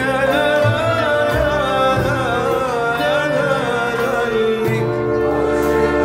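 Male voice singing a wavering, ornamented melody in Arabic style, accompanied by an orchestra with bowed violins. The voice stops about four and a half seconds in, and the orchestra holds long notes.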